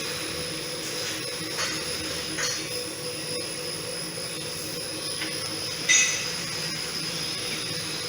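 A Ford Focus's front suspension being shaken on a Ruidcar road-noise simulator: a steady mechanical hum from the rig, with a few short squeaky knocks from the suspension, the loudest about six seconds in. The knocking comes from between the shock absorber and the strut mount, worse on the passenger side.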